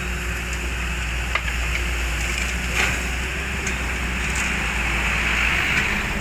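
Heavy construction machine's diesel engine running steadily under load, with a few sharp metallic knocks, one about a second and a half in and another near three seconds.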